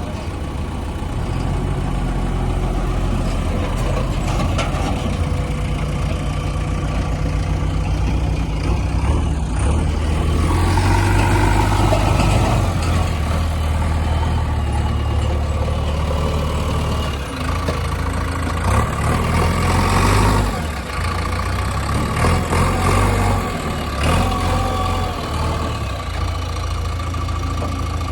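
Diesel engine of a JCB 3DX backhoe loader running as it digs and loads, its pitch rising about a third of the way in and shifting up and down afterwards. Several short bursts of noise come about two-thirds of the way through.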